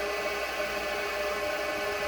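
High-pressure water pump running steadily: an even whir with steady humming tones, no change in level.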